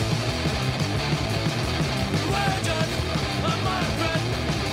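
Punk rock music with a fast, dense beat.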